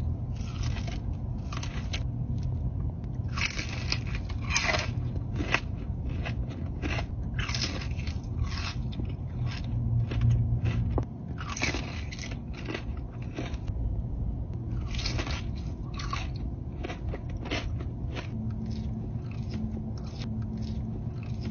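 Close-miked eating: a person biting and chewing crunchy food, with irregular crisp crunches and chewing noises throughout.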